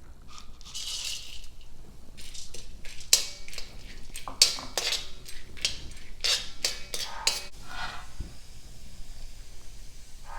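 A metal spatula stirring and scraping roasted gram (pottukadalai) around a kadai as it roasts, with irregular scrapes and clinks of metal on metal. Two louder clinks come about three and four and a half seconds in.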